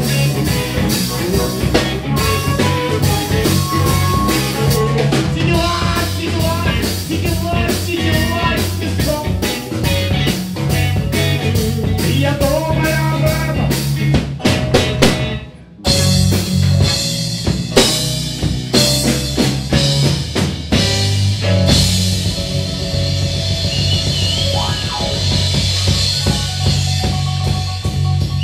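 Blues-rock band playing live: electric guitars, bass guitar and drum kit in an instrumental passage. About halfway through, the band stops dead for about a second, then comes back in, with long held guitar notes afterwards.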